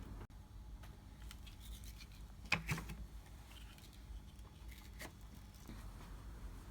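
Faint handling sounds of table-skirting clips being fitted: light rubbing of cloth with scattered small clicks, the sharpest pair about two and a half seconds in and another about five seconds in.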